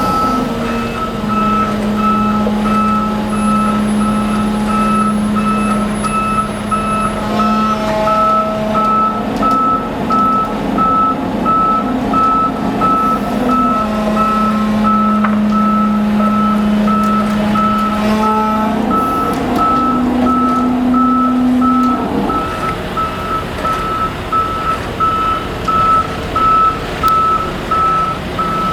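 A truck's reversing alarm beeping at an even pace throughout, over the steady hum of its engine. The engine note shifts higher about two-thirds of the way through, then drops away while the beeping continues.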